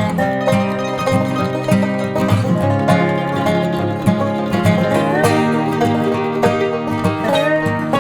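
Background music: fast plucked-string tune with banjo and guitar in a bluegrass style.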